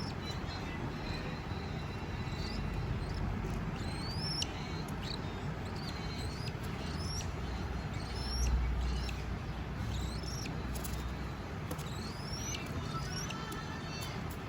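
Cockatiels chirping: short rising whistled chirps, about one a second, over a low steady background rumble.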